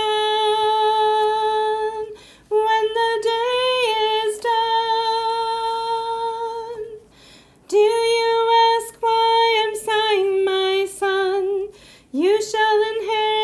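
A woman singing slowly and unaccompanied, in long held notes with short pauses between phrases.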